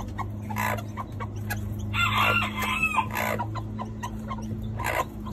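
Newly hatched chicks peeping in short, repeated cheeps, with an adult chicken giving a louder, drawn-out call about two seconds in and a short one near the end. A steady low hum runs underneath.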